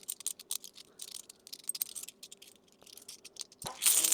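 50p coins clinking against one another as they are sorted through by hand: quick, irregular metallic clicks, several a second, with a louder, noisier clatter near the end.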